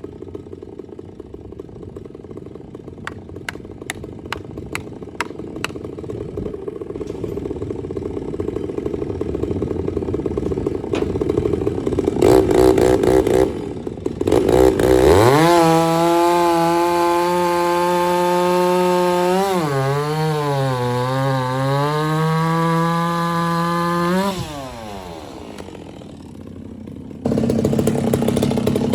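A low engine rumble with a quick run of clicks, then a chainsaw revving up to full throttle about halfway through. Its pitch sags for a few seconds as the chain bogs in the cut, then drops away as the throttle is released; another loud machine sound starts near the end.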